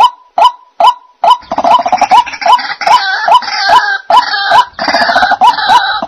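White-breasted waterhen calling: a steady run of short, repeated notes, between two and three a second. About a second in, a dense chorus of harsh, overlapping calls joins them and carries on.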